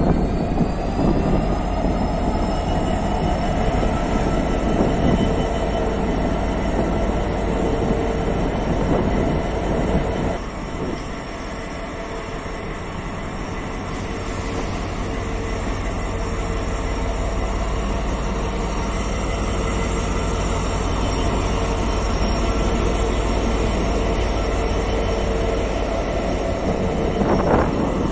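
Freightliner Class 66 diesel-electric locomotive's two-stroke diesel engine running, a steady low throb with a high whine that rises over the first few seconds and then holds steady.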